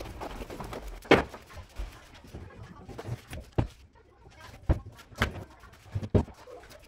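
Knocks and thumps of furniture being handled, about five or six at irregular intervals, the loudest about a second in.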